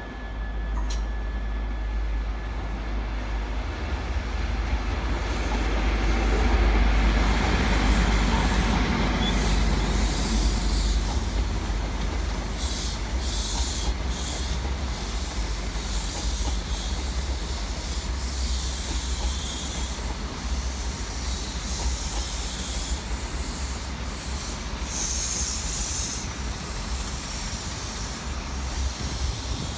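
InterCity 125 High Speed Train running through: the diesel power car grows louder over the first several seconds as it passes, then the Mark 3 coaches roll by with a steady low rumble and repeated bursts of high hiss.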